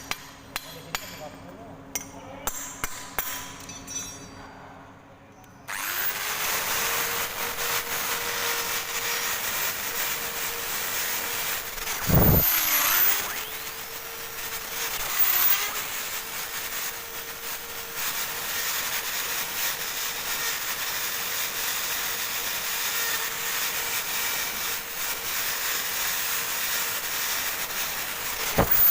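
Electric drill spinning a wire-brush attachment against metal, starting about six seconds in and running steadily, its motor pitch dipping briefly twice as the brush is pressed harder. Before it starts, a few light clicks and taps.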